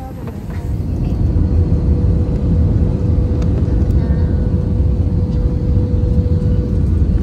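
Jet airliner rolling on the runway, heard from inside the passenger cabin: the engines and wheels make a deep rumble that grows louder over the first second or so and then holds, with a steady engine whine over it.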